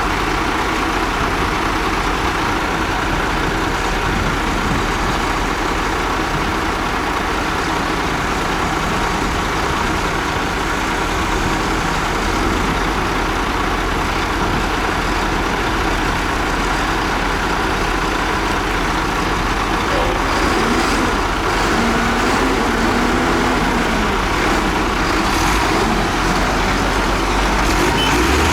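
Heavy construction machinery's diesel engine running steadily under load, with its pitch wavering somewhat in the later part.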